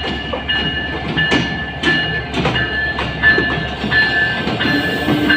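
Passenger train rolling through a station, its wheels clacking over rail joints about every half second, with a high metallic squeal from wheels and brakes that comes and goes over a steady low rumble.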